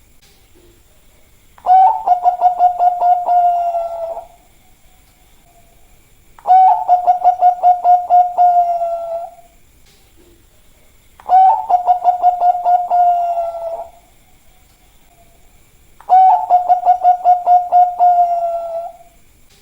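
Bangkok-line zebra dove (perkutut) cooing: four song phrases about five seconds apart. Each opens with a quick run of pulsing notes and runs into a held coo that falls slightly in pitch.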